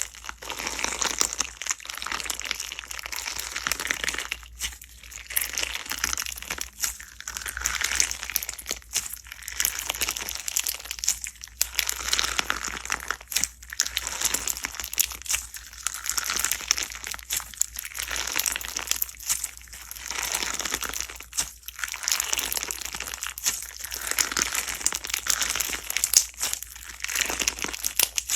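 Slime being squeezed and pressed by hand, crackling and popping with many small clicks in repeated squeezes a second or two apart.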